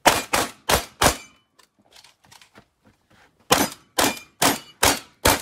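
Benelli M2 SP semi-automatic 12-gauge shotgun firing a rapid string: four shots about a third of a second apart, then after a pause of roughly two seconds five more shots about half a second apart.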